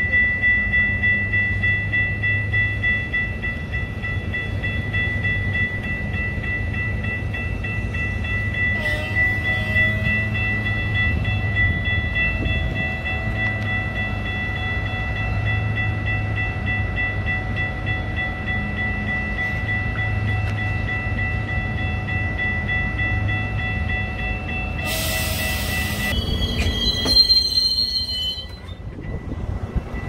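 Metra commuter train standing at the platform with its power running: a steady low rumble under a steady high-pitched whine. About 25 seconds in comes a brief hiss, followed by a few short chirping tones.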